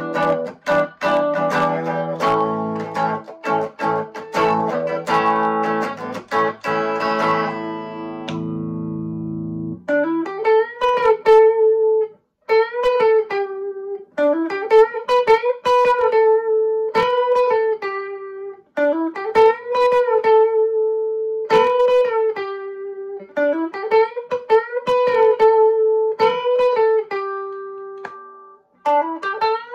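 Electric guitar (a humbucker-equipped Les Paul, both pickups selected) playing strummed chords for about ten seconds in out-of-phase mode, where the pickups' polarity is reversed for a thinner, hollow tone. It then switches to a repeated single-note lick with upward string bends in the normal, in-phase setting.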